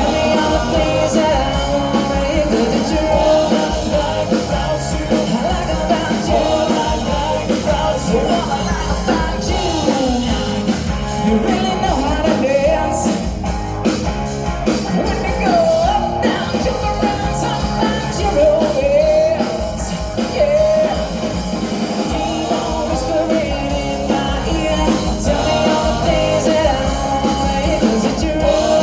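Live rock band playing rock and roll, with a wavering lead melody over a steady bass and drum beat.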